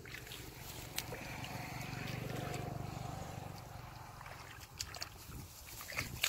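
A low engine hum that swells to its loudest about two and a half seconds in and then fades, with a few sharp splashes of feet and hands in shallow mud and water.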